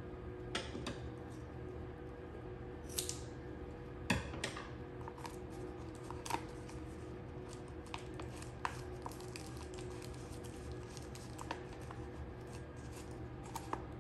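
Blue painter's tape and a paper envelope being handled: tape peeling and sticking and paper rustling in scattered short strokes, a few louder tears, over a faint steady hum.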